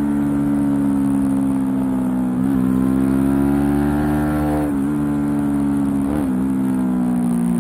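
Suzuki sport motorcycle engine running hard on track, heard from on board. Its pitch climbs and eases, with brief breaks in the note about two and a half, five and six seconds in.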